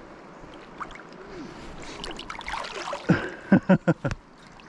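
River water running steadily, with a few short voice sounds about three seconds in.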